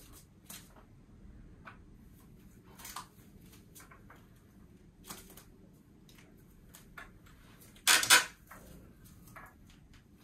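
Scattered light taps and knocks of a long wooden board being handled and pressed against a wall, with two louder knocks close together about eight seconds in.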